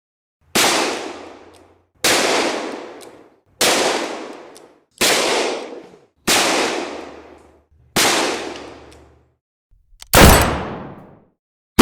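Pistol shots: six alike single shots about a second and a half apart, each with a long fading echo, then a louder, sharper shot of a different kind about ten seconds in, just after a faint click.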